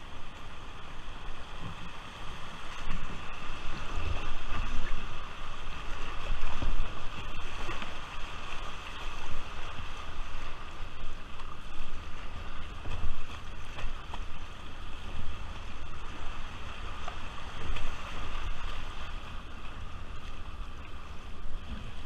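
River water rushing over shallow riffles around a whitewater kayak, with the splash of paddle strokes and the bow cutting through the current, heard from the cockpit. Uneven low rumbles of wind buffet the microphone throughout.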